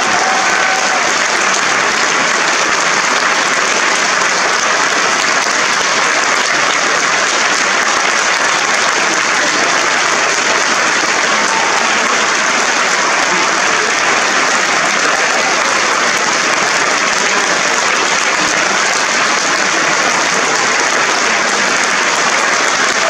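Large audience applauding steadily, a dense, unbroken clapping with no pauses.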